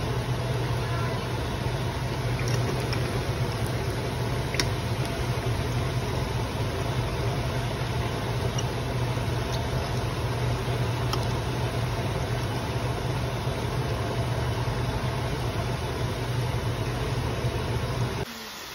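Mandazi (Ugandan donut dough) deep-frying in hot cooking oil: a steady sizzle with a few small pops, under a loud steady low hum.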